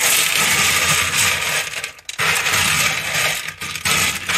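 Freshly rinsed clay pebbles (expanded clay balls) rattling and clattering as a hand rakes and spreads them across the bottom of a glass tank, with a short break about two seconds in.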